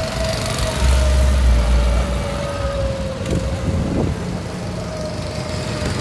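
A go-kart running around the track, its motor a steady whine that drifts slightly lower in pitch.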